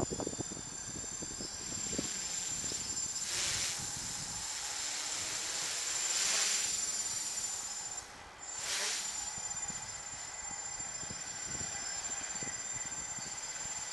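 Electric quadcopter's motors and propellers buzzing in flight, heard as a steady hiss with a thin high whine. It swells louder three times, most strongly about six seconds in.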